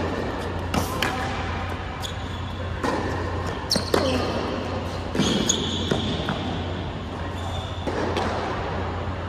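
Tennis rally on an indoor hard court: rackets strike the ball and the ball bounces, with a sharp pop every second or two that echoes in the hall, over a steady low hum.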